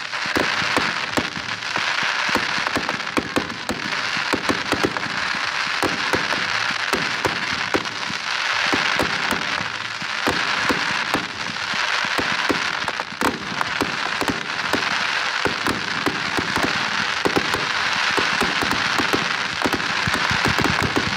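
Aerial fireworks display: steady crackling from many shells and rising comets at once, cut by frequent sharp pops.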